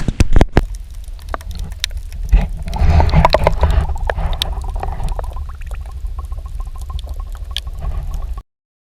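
Water sloshing and gurgling against a kayak's hull under way, with heavy wind rumble on the microphone; a few sharp knocks near the start, and the sound cuts off suddenly near the end.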